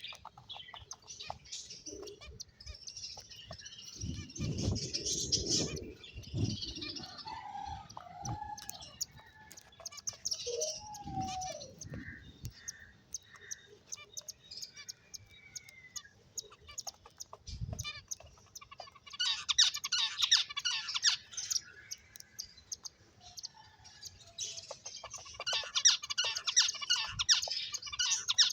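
Small finches chirping in bursts of rapid, high-pitched twittering, with quieter stretches between. The loudest bursts come in the second half. A few lower gliding calls and some low thuds fall around the middle.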